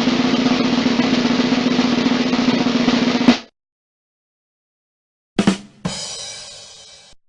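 Snare drum roll sound effect ending in a sharp crash hit. After a pause of about two seconds come two more drum hits, the second ringing out and fading.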